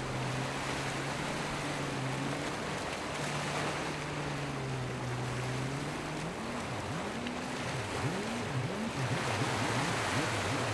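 Large motor yacht running at speed through choppy water: a steady low engine drone over the rush of water along the hull and wind. About six seconds in, the engine note starts to swoop up and down again and again.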